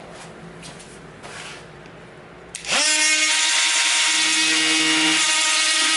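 Makita cordless die grinder fitted with a Kutzall ball-nose rasp, switched on a little under three seconds in after faint handling noise: it spins up with a quick rising whine, then runs at full speed with a loud, steady high-pitched whine.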